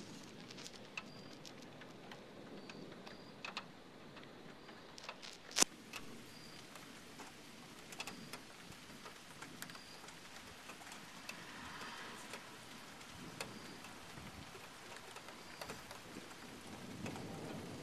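Steady rain at the onset of a severe thunderstorm, with scattered sharp drops ticking on a nearby surface; one tick about five and a half seconds in is louder than the rest.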